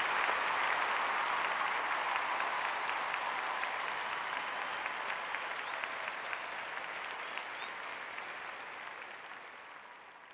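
Concert audience applauding, a dense, steady patter of many hands clapping that fades out near the end.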